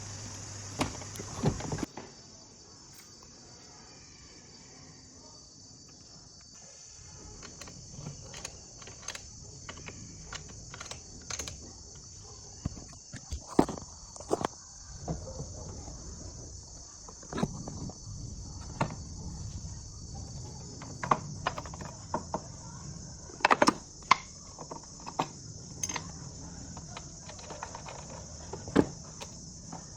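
Irregular sharp clicks and light knocks, scattered unevenly, over a steady high-pitched hiss.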